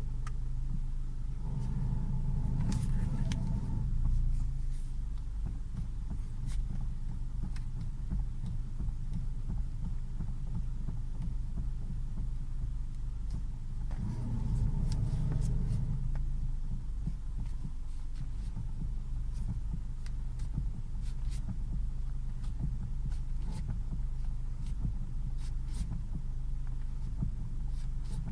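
Car running with a steady low hum and a rhythmic knocking throb, the knock and beating fault it is recorded for. It swells louder twice, about two seconds in and again about fourteen seconds in.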